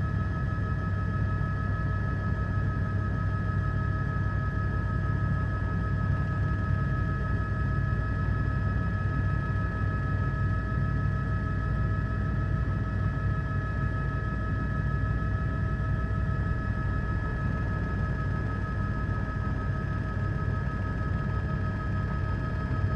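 Steady drone of a helicopter's engine and rotors heard from on board: a low, even rumble with a few constant whining tones over it.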